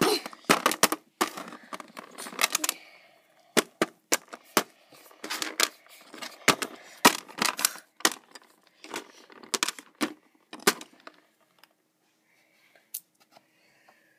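Small plastic toy figures and accessories clicking and clattering against a plastic dollhouse floor as they are moved by hand, a rapid run of irregular taps that thins to a few isolated clicks after about eleven seconds.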